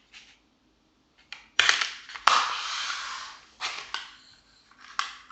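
Laptop RAM module being handled and fitted into its slot: a few sharp plastic clicks, the loudest about two seconds in followed by about a second of rustling scrape, then more single clicks near the end.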